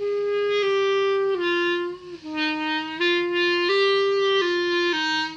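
A child playing a clarinet: a slow, simple tune of about nine held notes moving stepwise up and down in the low register, with a brief break about two seconds in.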